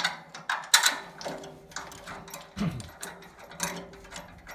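Irregular metallic clicks and taps as M10 cap-head bolts with spring washers are handled and started by hand into the bevel box's aluminium casting through its steel bracket. The sharpest click comes just under a second in.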